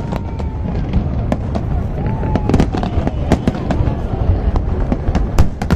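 Fireworks display: aerial shells bursting in a rapid, continuous string of bangs and crackles, with a louder bang near the end.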